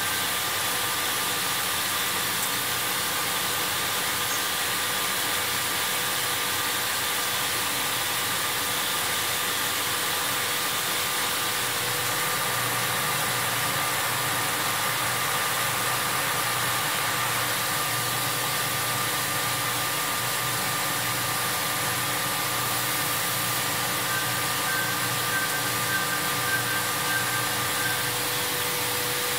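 Röders RXU 1000 DSH CNC machining center running a drilling or milling cut: an even, steady hiss with a few faint, steady whining tones over it. A low hum joins partway through.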